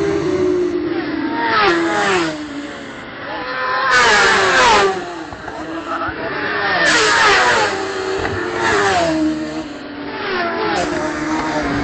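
Racing motorcycles passing one after another at full speed. Each engine note swells and then drops in pitch as the bike goes by, several times over.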